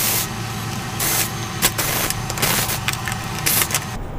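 Cordless drill-driver running in short bursts as it backs out the screws of an LED TV's plastic back cover.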